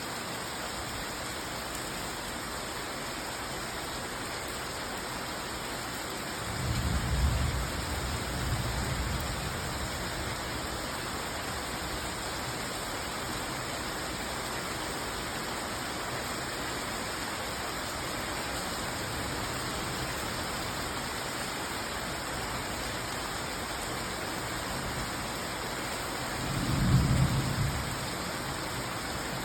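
Steady rain falling, with two low rumbles of thunder, one about seven seconds in that lasts a few seconds and a shorter, louder one near the end.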